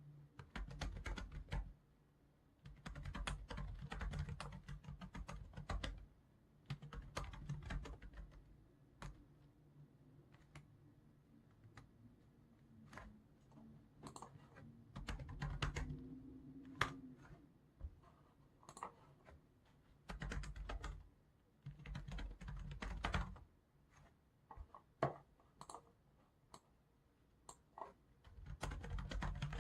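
Typing on a computer keyboard in bursts of rapid keystrokes a second or a few seconds long, with pauses between them where only single clicks are heard.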